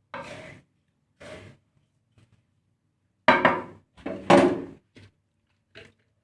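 Bird-seed mix of millet, jawut and black glutinous rice being stirred as it dry-roasts in a pan: a run of short scraping strokes about once a second, with two louder strokes a little past the middle.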